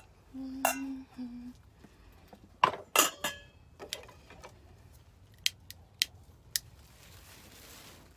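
Metal utensils and dishes clinking and knocking, with a few sharp single clicks, some ringing briefly.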